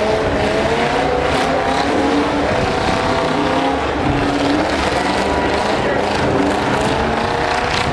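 Demolition derby pickup trucks' engines running loud and revving, their pitch rising and falling unevenly.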